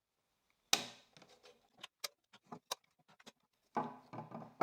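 A string of light wooden knocks and clicks, with one sharper knock about a second in and a few more near the end: wooden pieces and tools being handled.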